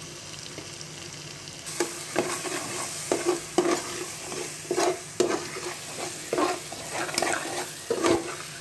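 Steel spoon stirring and scraping through onion-tomato masala frying in oil in an aluminium pot, with a steady sizzle. The sizzle picks up about two seconds in, and from there the spoon scrapes the pot roughly twice a second.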